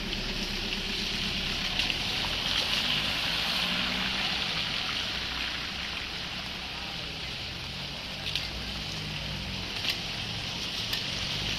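Heavy rain falling on a flooded street, a steady hiss, with the engines and tyres of cars driving slowly through the standing water underneath.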